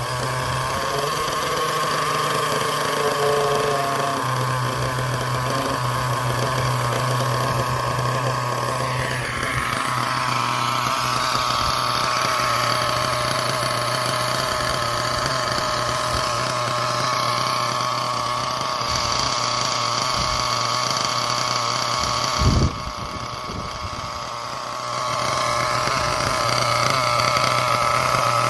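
Hobao Mac 28 two-stroke nitro engine in a Hyper 8 buggy running steadily at idle, tuned rich on its first run after a complete rebuild. About three-quarters of the way through there is a short thump and the engine runs quieter for a couple of seconds before picking up again.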